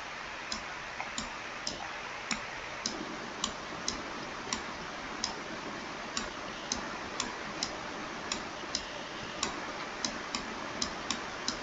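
Computer mouse clicking as pencil strokes are drawn: sharp single clicks about every half second, unevenly spaced, over a steady background hiss.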